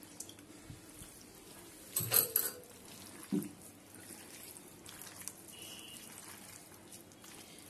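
Hands squishing and kneading raw chicken in a yogurt, onion and spice marinade in a stainless steel bowl: soft wet squelching, with a louder burst about two seconds in.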